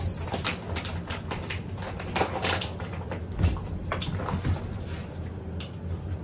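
Irregular light clicks and taps as a black Labrador moves about on a hardwood floor, over a low steady hum.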